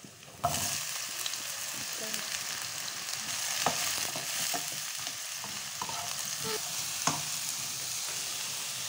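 Chopped vegetables tipped into a hot pan of oil and garlic, setting off a sudden sizzle about half a second in. The frying hiss then holds steady while a wooden spatula stirs them, with occasional knocks and scrapes against the pan.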